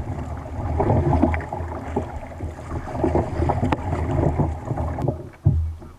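Wind buffeting the microphone and water sloshing around a kayak on the sea, with a few light knocks and one sharper knock near the end.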